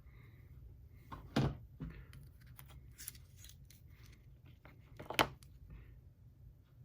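Small hard clicks and knocks from pliers and the XT90 connector being handled while soldering, with two louder clacks about a second and a half in and again about five seconds in, over a low steady hum.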